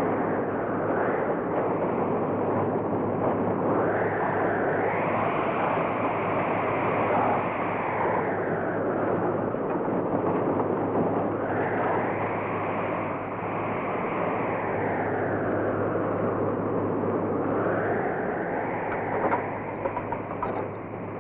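Blizzard wind howling in gusts that rise and fall in pitch every few seconds, over a steady low hum.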